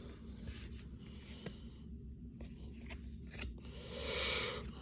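Baseball trading cards being handled and flipped through: a few light ticks and slides of card on card, with a short rustle near the end, over a low steady hum.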